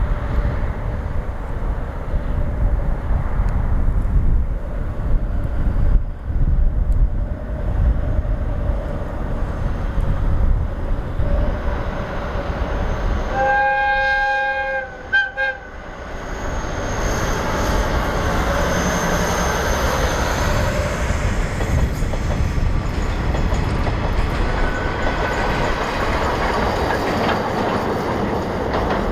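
Steam whistle of the SL Hitoyoshi's 8620-class steam locomotive: one blast about halfway through, then two short toots, followed by the train running past with rail noise and a high wheel squeal. Gusty wind rumbles on the microphone before the whistle.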